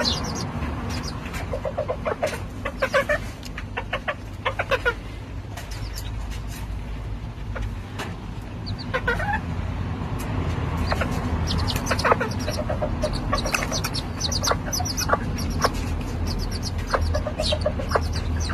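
Serama bantam hen clucking in short runs of low pulses while her chicks peep in quick clusters of high chirps, over a steady low rumble.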